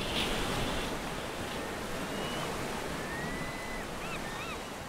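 Steady wash of sea water, like small waves on open sea, with faint short high chirps from about halfway through.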